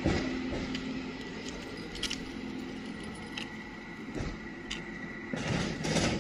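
Gloved hands rummaging through rubbish in a drain: scattered rustling and clicks of litter, loudest in a burst near the end, over a low steady hum that fades out about halfway through.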